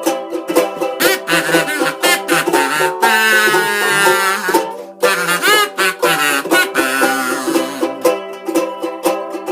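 Ukulele strummed in a steady rhythm while a kazoo buzzes out the tune in an instrumental break.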